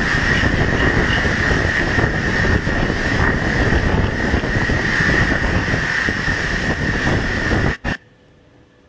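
Typhoon wind and driven rain battering roofs and the microphone: a loud, steady rushing with a high whistling tone running through it. It cuts off suddenly about eight seconds in.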